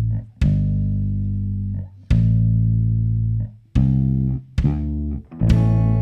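Bass guitar and guitar playing long held low notes in a stop-start phrase. Each note is cut off sharply, and a new one starts roughly every one to two seconds.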